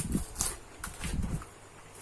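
Close-miked eating sounds: a few sharp wet mouth clicks and smacks from chewing, then some low dull thumps about a second in.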